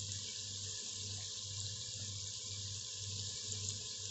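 Shakkar pare, diamonds of sweetened flour dough, deep-frying in hot oil in a kadai: a steady sizzling hiss.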